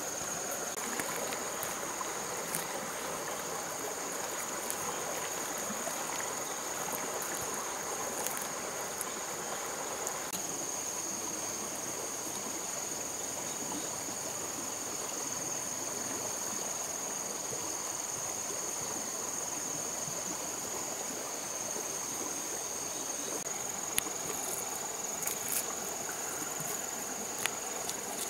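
Insects calling in one steady high tone over a constant background hiss, with a few small clicks near the end.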